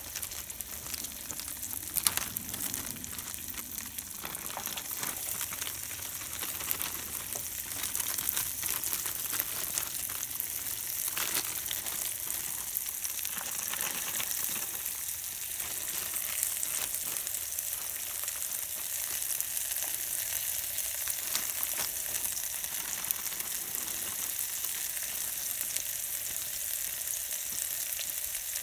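Summer sausage frying in butter in an aluminium Swedish army mess kit pot: a steady sizzle with scattered pops and crackles, growing a little louder about a third of the way in.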